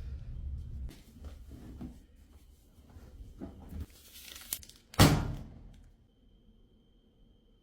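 Cleaning handling noises: scattered clicks and rustling, a brief hissing tear or crinkle about four seconds in, then one loud thunk at about five seconds that dies away within a second.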